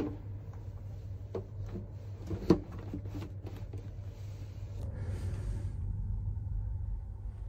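A capsule hotel's roll-down privacy blind being pulled down and hooked shut: a run of clicks and knocks, with one sharp clack about two and a half seconds in, then a brief rustle, over a steady low hum.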